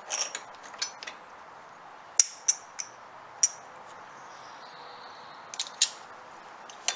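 Sharp metal clicks and clinks of a serpentine-belt idler pulley and its bolt being handled and set against the idler mount by hand, about ten separate clicks in small clusters.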